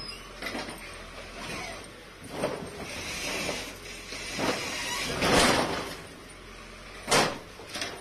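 Irregular scraping, knocking and crashing of a bulldozer breaking down a mud-walled house and its boundary wall, with a sharp loud bang about seven seconds in.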